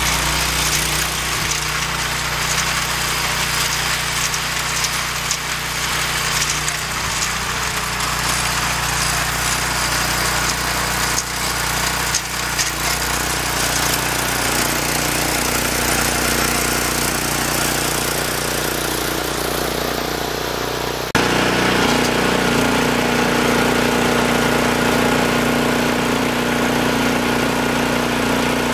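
Roper garden tractor engine running with its snowblower attachment working, at first from a distance, then close up about 21 seconds in, louder with a steady engine tone as the blower throws snow.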